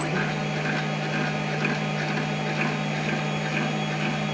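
Steady low hum of workshop machinery, with faint light ticks at fairly even spacing.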